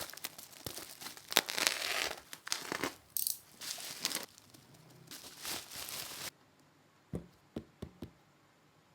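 Packaging being torn open and crumpled in the hands while unboxing, in dense irregular rustles that stop abruptly. A few light clicks follow near the end.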